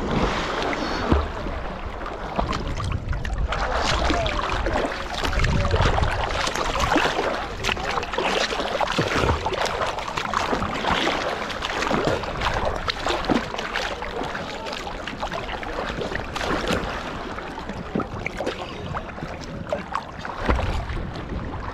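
Lake water splashing and sloshing close to the microphone as a swimmer paddles at the surface, with many small, sharp splashes.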